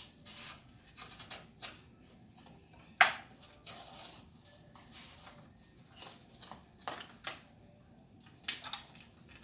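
Kitchen handling sounds while edamame is put onto a salad: scattered light clicks, scrapes and rustles, with one sharp knock about three seconds in.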